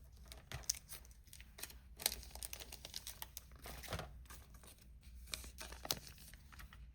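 Foil Pokémon booster pack wrapper crinkling and trading cards being handled: a quiet run of small scattered crackles and clicks.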